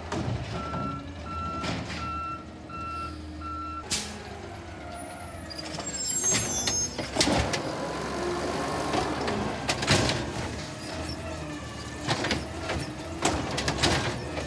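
Garbage truck's reversing alarm beeping five times, evenly spaced. Then the 2016 Peterbilt 320 side-loader's engine speeds up to drive its automated arm as it lifts and tips a green-waste cart, with sharp knocks and clanks of the cart and its lid against the truck.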